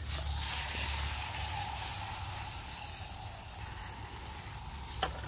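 Garden hose spray nozzle hissing steadily as water sprays onto a compost pile, soaking it down, over a low steady rumble.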